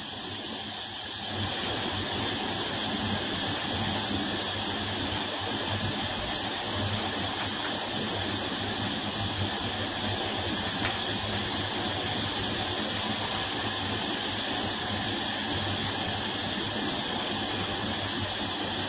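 Steady hiss with a single faint tick about eleven seconds in.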